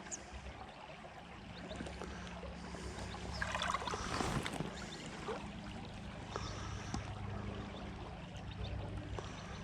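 Water of a small, low stream trickling and gurgling over stones, with a louder spell of splashing about four seconds in.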